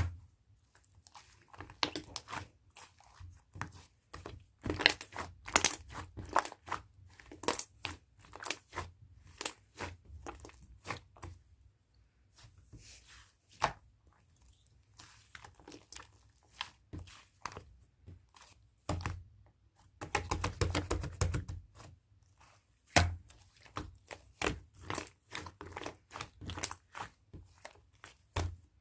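Soft slime being squished, pressed and stretched by hand, giving irregular sticky clicks and pops of trapped air, with a dense run of crackling pops about two-thirds of the way through.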